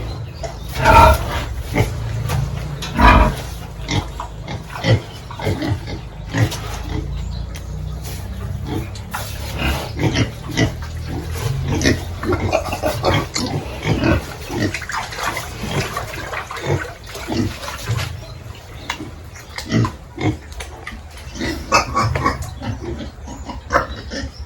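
Pigs grunting and calling in a pen, many short overlapping calls, with two louder calls about one and three seconds in.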